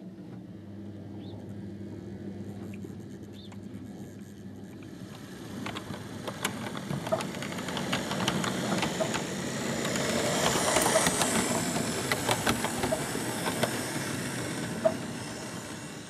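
OO gauge model diesel locomotives and coaches running on track: a steady motor hum that grows louder from about five seconds in, peaking near the middle, with rapid clicks of wheels over the rail joints.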